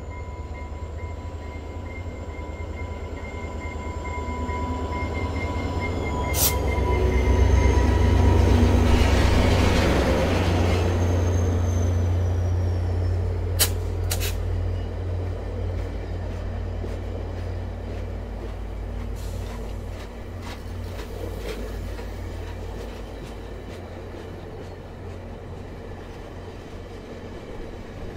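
VIA Rail F40PH-2D diesel locomotive, an EMD 16-cylinder two-stroke, pulling a passenger train away from the station. Its engine builds to a loud peak as it passes about eight seconds in. After that the coaches roll by with steady rumbling wheel noise and a few sharp clicks.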